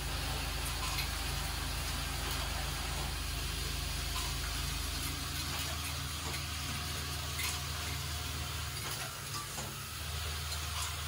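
Vibratory bowl feeder of a lotion-pump assembly machine running with a steady low hum, loose metal coil springs rattling and jingling continuously as they are shaken along the bowl's track.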